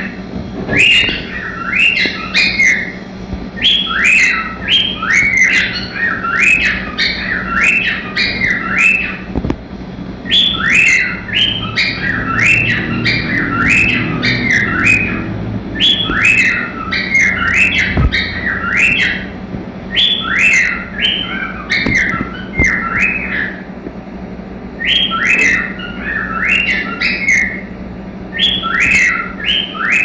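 Cockatiel singing: rapid chirps strung into short phrases of several notes each, repeated again and again with brief pauses between phrases.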